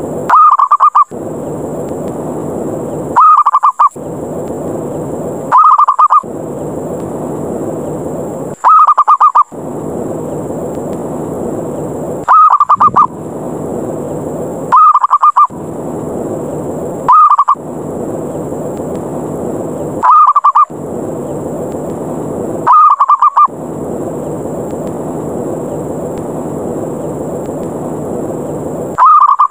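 Zebra dove (perkutut) challenge call used as a lure: short, loud, rapid rolling coos repeated every two to three seconds, with a longer pause near the end. A steady hiss fills the gaps between calls.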